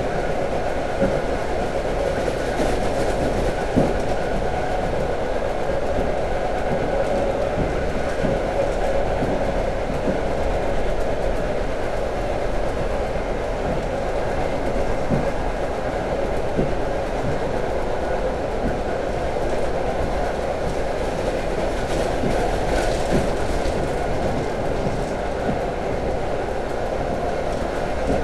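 Electric commuter train running at speed, heard from inside the carriage: a steady rumble of wheels on the rails with a constant hum and scattered light knocks.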